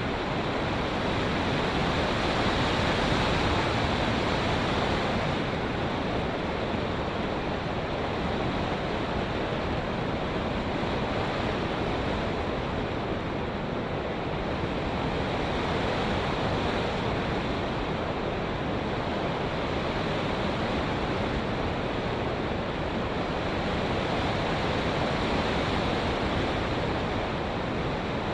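Rushing airflow noise over the microphone of a camera riding on a Bixler RC plane in flight, steady with slow swells and no distinct motor whine standing out.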